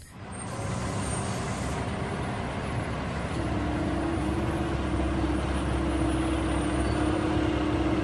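Mack concrete mixer truck's diesel engine running steadily, with a steady hum joining in about three seconds in.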